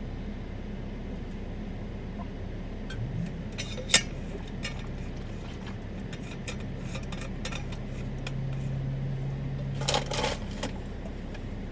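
Steady low hum of a vehicle's interior, with a sharp click about four seconds in, a few lighter clicks, and a short burst of clinking clicks near the end.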